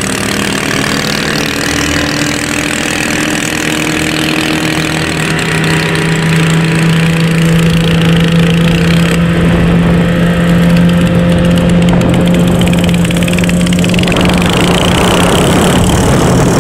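Small watercraft engine running steadily at speed over the river, with rushing water, growing a little louder about halfway through.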